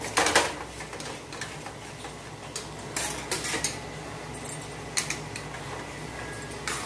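A metal spoon scraping and clinking against a metal kadhai as besan roasting in ghee is stirred: irregular clinks and scrapes, the loudest just after the start.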